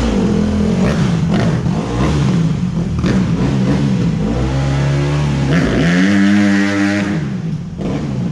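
Dirt bike engine revving hard, its pitch rising and falling several times with a loud high-rev stretch, then falling away near the end; the rider says right after that the motor locked up.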